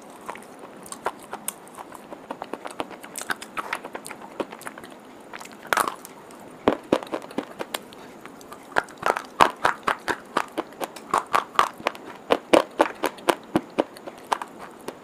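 Stick of white chalk being bitten and chewed close to the microphone: crisp crunches and clicks, sparse at first, then fast and loudest in the second half.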